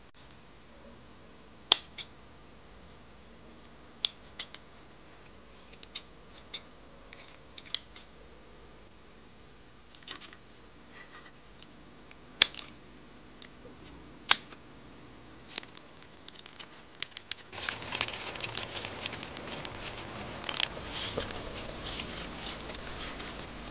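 Kitchen scissors snipping the spikes and long antennae off raw shrimp heads: sharp single snips every second or few. About two-thirds of the way in this gives way to a denser, steady crackling as the shrimp are handled on the tray.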